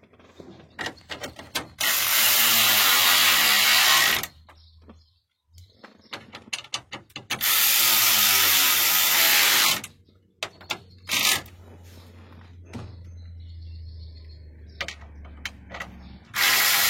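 Battery-powered ratchet running in three spurts, two of about two seconds and a short one near the end, driving screws back into plastic interior trim panels, with clicks and handling knocks between.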